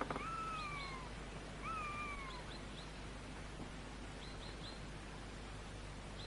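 Two drawn-out animal calls, each falling slowly over about a second, in the first two seconds. Short high chirps follow in twos and threes, over a faint steady background.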